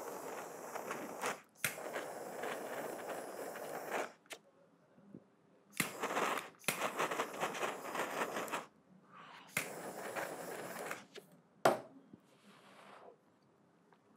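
Butane torch lighter hissing in four bursts of a few seconds each while lighting a hemp blunt cone, with a couple of sharp clicks between the bursts.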